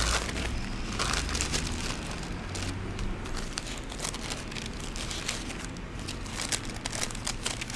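Pages of a Bible being leafed through: thin paper rustling and crinkling in a run of quick, irregular flicks.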